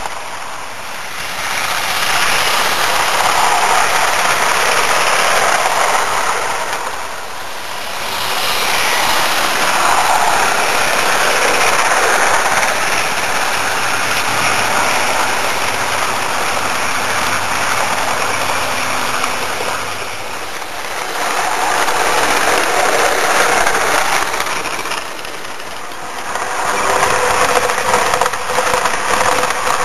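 OO-gauge model train running along the track, its motor and wheels making a steady rolling whirr that grows louder and fades several times as the trains pass close.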